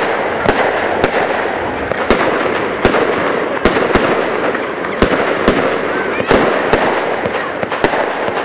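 Firework battery firing gold-star shots in quick succession: sharp bangs about twice a second over a continuous crackling.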